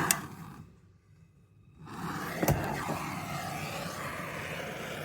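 A sharp click at the start, then about two and a half seconds in a gas torch is lit with a click and burns with a steady hiss, the flame heating a rusted bolt head.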